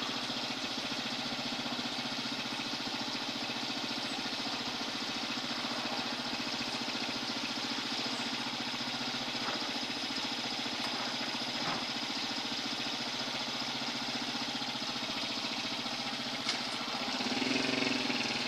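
Small motorcycle engine idling steadily, picking up and getting louder near the end.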